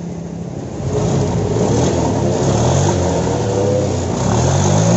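Honda Genio scooter's 110 cc single-cylinder engine revving up from idle about a second in, driving the CVT and rear wheel, its pitch rising and falling. The repaired CVT runs smoothly, with the earlier jingling and knocking gone.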